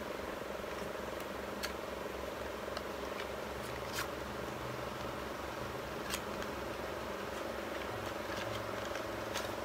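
Small cardboard product boxes being handled and opened, giving a few faint clicks and rustles about every two seconds over a steady low background hum.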